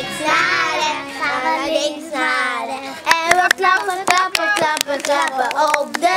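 A group of children singing together, joined from about three seconds in by a run of sharp hand claps in time with the singing.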